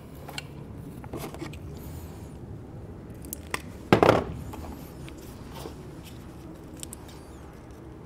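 Wire cutters snipping through an insulated power wire once, a short sharp cut about four seconds in, among a few light clicks of hand tools being handled.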